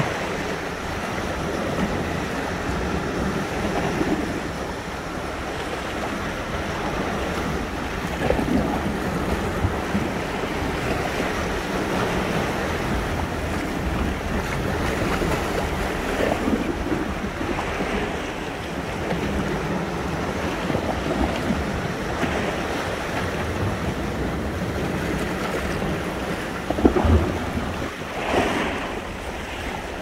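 Sea surf washing in continuously, rising and falling in slow swells, with wind rumbling on the microphone. A louder surge comes near the end.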